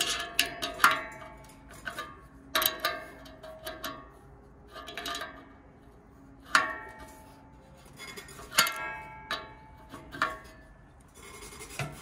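Adjustable wrench clinking against the hub nut of an air-conditioner condenser fan blade as the nut is turned down onto the motor shaft, in clusters every second or two. Each clink sets the sheet-metal fan blade ringing briefly.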